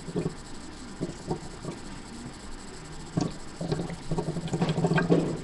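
A thin plastic stirrer tapping and scraping against the sides of a small plastic Sea-Monkeys tank of water. Scattered light clicks at first, then a busier, louder run of clicks and scrapes for the last two seconds or so.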